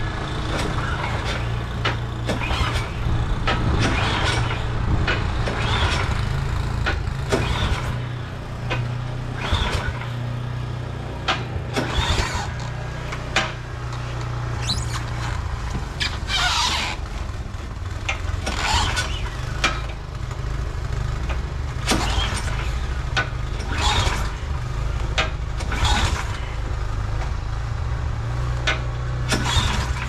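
A brand-new Ariens snowblower being pull-started over and over, the recoil starter cord rasping about every two seconds while the engine cranks without catching. Under it runs a steady low rumble.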